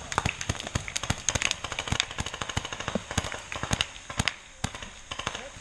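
Paintball markers firing in rapid, irregular volleys of sharp pops, several a second from more than one gun, thinning out about four seconds in.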